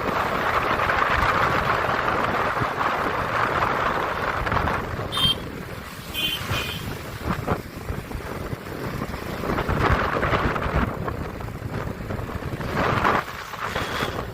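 Wind rushing over the microphone on a moving bike, surging and easing off, with a few short high beeps or chirps about five and six and a half seconds in.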